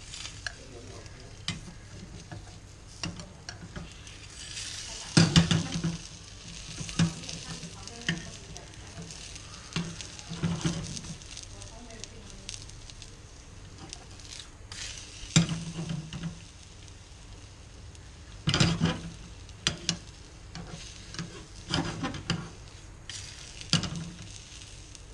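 An egg sizzling in a small non-stick frying pan over a gas flame, with a metal spatula scraping and knocking against the pan in repeated sharp bursts, loudest about five seconds in and again around fifteen and eighteen seconds in.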